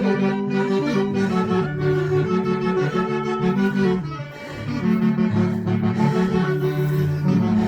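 Huancayo-style folk orchestra playing a melody, with reed wind instruments carrying held notes over strings. There is a short break in the phrase about four seconds in.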